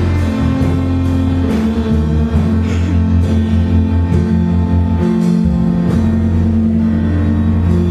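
Live band playing an instrumental passage of a country ballad, with electric guitar over a steady bass line.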